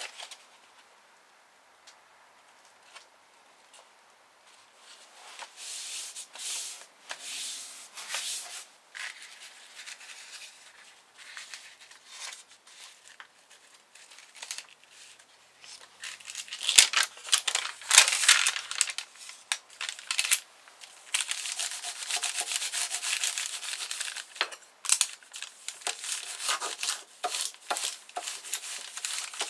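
Paper rustling as sheets are handled and a pasted decorative paper is lifted and laid down. From about halfway, a steady scraping rub of a folder tool over a covering sheet follows, pressing the freshly pasted endpaper flat.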